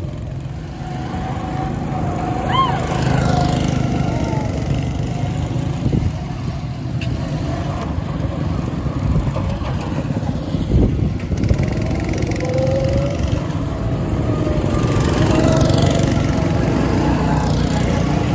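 Several small go-kart engines running and revving unevenly as the karts pull away and drive past one after another.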